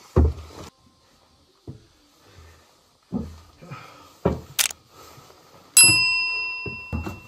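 Several dull thumps of footsteps on a steep wooden-and-mud staircase and floor. About six seconds in comes a single bright bell ding that rings out for over a second, the loudest sound here: a like-and-subscribe bell sound effect.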